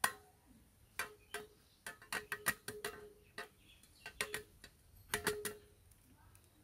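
Boiled eggs being tapped and cracked against a stainless steel bowl for peeling: a string of sharp, irregular clicks, many followed by a brief metallic ring from the bowl.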